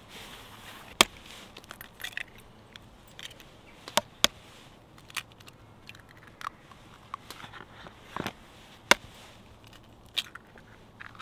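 Scattered sharp clicks and taps of food being prepared by hand, from a knife, bread and a steel bowl handled on a wooden log round. About half a dozen loud clicks stand out over fainter ticks.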